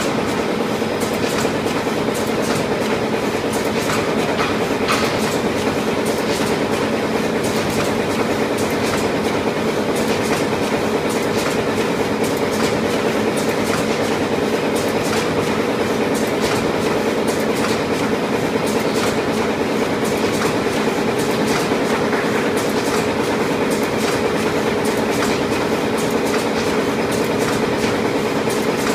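Fully automatic wet-towel folding and horizontal flow-wrap packaging machine running at production speed: a steady hum with a continuous fast clatter of clicks.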